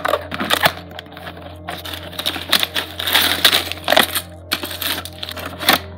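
Cardboard box being opened and emptied: sealed plastic bags of small plastic building pieces rattle and crinkle as they slide out onto a plastic baseplate, with scattered clicks and knocks.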